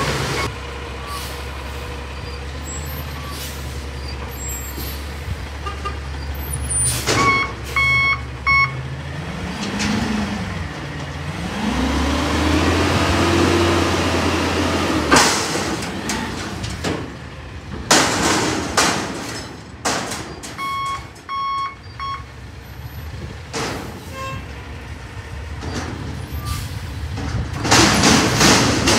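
Natural-gas Peterbilt 320 front-loader garbage truck running, with the engine revving up and settling twice between about 9 and 15 seconds in. Reversing beeps sound in two short runs, and the air brakes hiss several times as the truck moves off.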